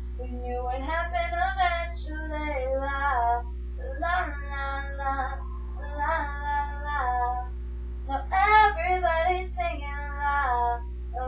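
A young woman's voice singing in a series of short phrases with brief pauses between them, over a steady low electrical hum.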